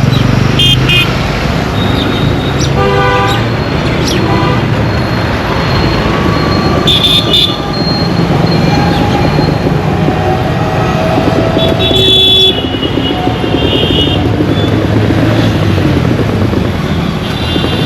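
Steady, dense road-traffic rumble with vehicle horns honking several times, short toots and one longer blast about three seconds in.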